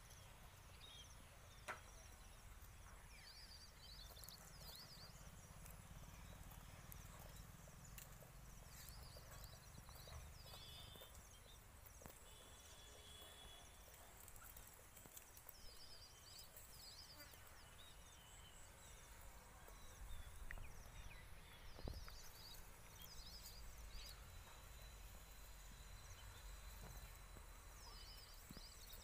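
Quiet rural ambience with a low steady rumble. A small bird's short chirping calls come in brief clusters every five or six seconds.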